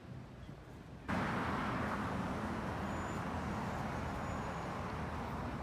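Faint background at first, then about a second in a steady roar of vehicle traffic noise cuts in and holds.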